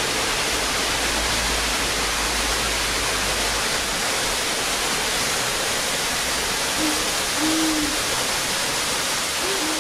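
Steady rushing of a waterfall plunging into a rock pool. A few short, low hooting tones come in near the end.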